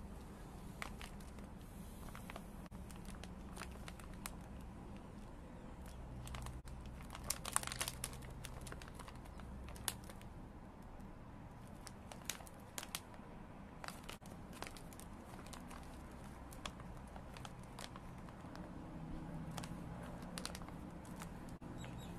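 Plastic snack pouch crinkling and crackling as it is held and turned over in the hands, in irregular bursts of small crackles.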